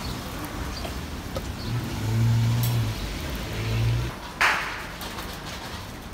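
A motor vehicle's engine running close by, a low steady hum that swells for about two seconds in the middle and then fades, over steady street noise. About four and a half seconds in there is one sharp clack, the loudest sound here.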